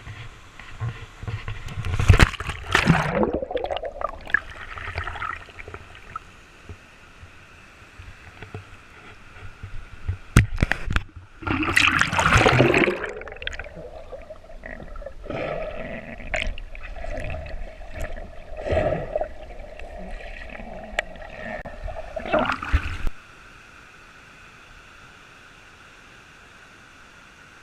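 Water splashing and gurgling close to the microphone in irregular surges, then cutting off abruptly near the end, leaving only a faint steady hiss.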